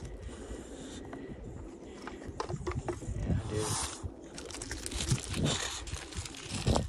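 English bulldog sniffing and panting, its paws crunching and scuffing on gravel.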